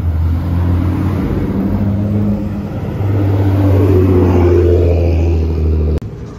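A car engine running loud and low, a steady deep note that gets louder about halfway through and rises slightly in pitch later on, then cuts off abruptly just before the end.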